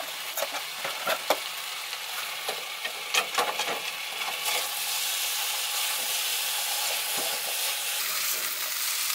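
Leftover vegetables sizzling in a frying pan on a gas stove while a plastic slotted spatula stirs and scrapes them, with scattered clicks against the pan in the first few seconds. About halfway through, the sizzle grows louder and steadier, with the steak now also in the pan.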